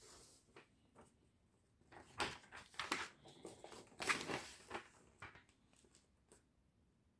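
Paper instruction booklets rustling as they are handled and their pages turned, in a few short bursts, the loudest about two seconds and about four seconds in.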